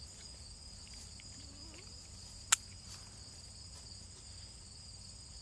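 Steady high-pitched chorus of insects in the grass, continuous throughout. A single sharp click about two and a half seconds in is the loudest sound.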